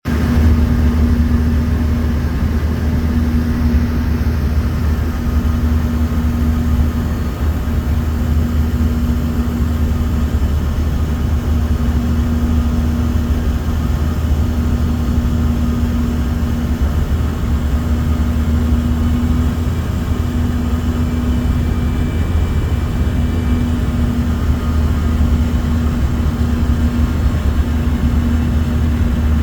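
Airliner cabin noise: a steady deep rumble of engines and airflow with a droning hum above it.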